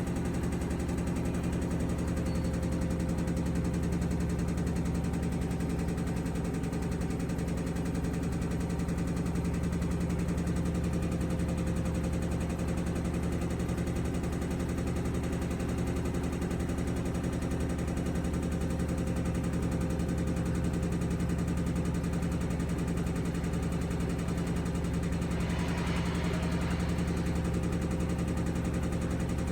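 Panasonic NA-V130UDH-W washing machine in its spin cycle, running steadily with a low hum and a fast rattling knock: an abnormal spin-cycle noise. A brief hissier stretch comes in near the end.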